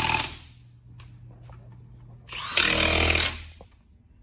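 Cordless impact wrench on a car wheel's lug nuts, rattling in two bursts of about a second each: one right at the start and another about two and a half seconds in.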